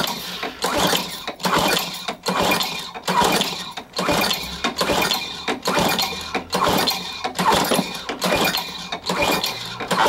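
Craftsman lawnmower's 6.75 HP Tecumseh engine being pull-started again and again, about a dozen quick, evenly spaced pulls, each a short surge of rope and engine cranking that dies away without the engine catching. With the blade removed, the engine will not start.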